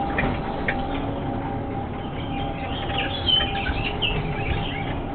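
Many short, high bird-like chirps, busiest about three seconds in, over a steady hum and low rumble from the ride car running through its tunnel.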